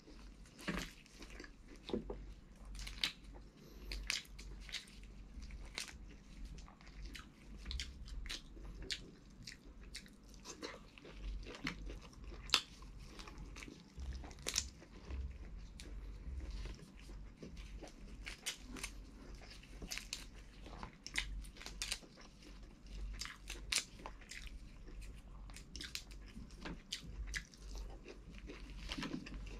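Boiled shrimp shells cracking and crackling as they are broken apart and peeled by gloved hands, mixed with chewing, close to a clip-on microphone. Irregular sharp clicks and crunches come every second or so.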